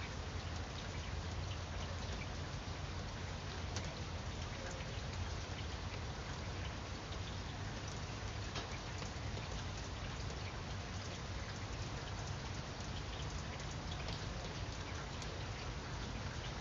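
Steady rain falling on leaves, with individual drops ticking sharply here and there.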